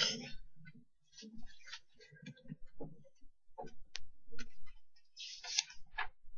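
Irregular light clicks and ticks, a dozen or so scattered over several seconds, with a few faint low thumps between them.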